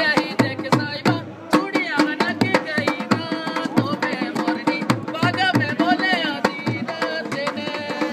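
Dholak, a two-headed barrel drum, played by hand in a fast, steady folk rhythm to accompany a kathputli puppet dance, with a singing voice carrying a wavering melody over it.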